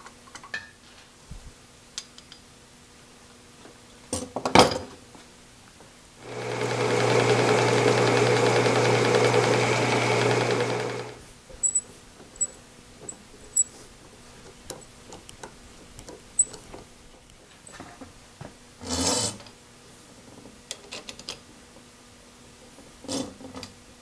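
Metal parts and tools knocking and clinking as they are handled, the sharpest knock about four and a half seconds in. A shop machine motor runs steadily for about five seconds in the middle, with a constant hum under a wide hiss.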